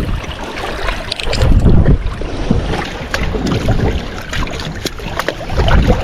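Gusting wind buffeting the microphone over sea waves washing on the rocks, in loud uneven surges, with scattered small clicks.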